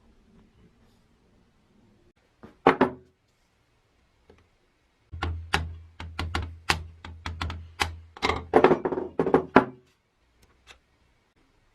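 One heavy thunk, then a quick run of sharp taps and knocks lasting about four and a half seconds, with a low hum under the first half of them.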